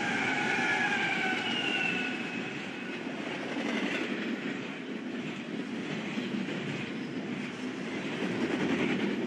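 A double-stack container freight train pulled by Union Pacific diesel locomotives passing close by: a steady rumble of engines and wheels on the rails. For the first two or three seconds a few high tones sound over it, dropping slightly in pitch as they fade.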